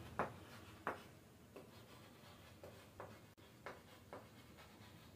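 Chalk writing on a blackboard: faint, irregular short taps and scrapes as the chalk strikes and drags across the board.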